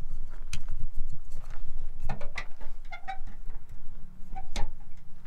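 A black hard plastic carrying case being handled and pulled off a pickup's tailgate: a run of scattered clicks, taps and knocks of plastic, with a couple of brief squeaks.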